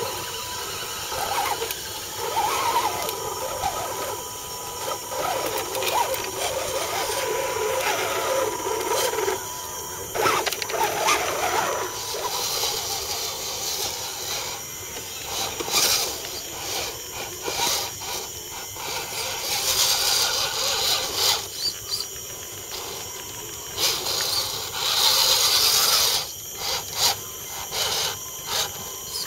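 Small electric motors and gearboxes of RC scale crawler trucks whining as the trucks crawl over rocks and roots. The whine comes in uneven surges, loudest several times in the second half.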